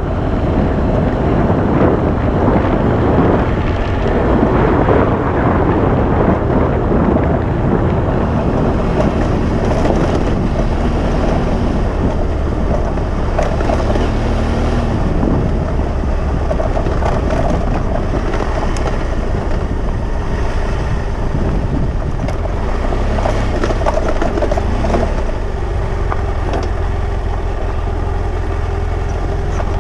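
Motorcycle engine running as the bike rides along a dirt track, mixed with wind rushing over the microphone.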